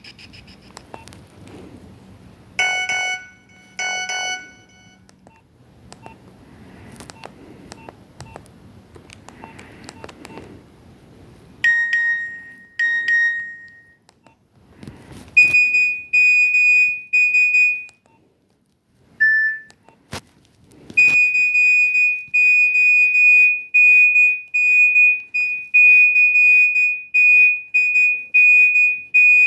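A Nokia 1209 mobile phone's built-in alert tones played through its small speaker: two short chiming beeps, then two longer single beeps, then a high-pitched beep pattern. From about 21 seconds in, a fast, steadily repeating high beep sounds, like an alarm.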